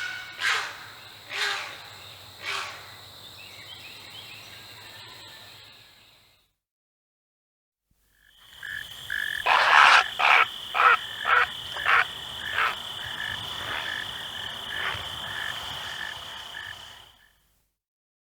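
Great blue heron giving harsh, croaking calls: a few spaced croaks at the start, then, after a break, a faster run of about seven loud croaks with fainter ones trailing after. A steady high tone runs underneath.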